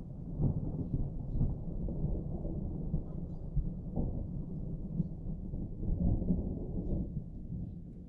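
Distant thunder: a low rolling rumble that swells in and rolls on for several seconds, crackling louder about half a second in and again around four and six seconds, easing off near the end.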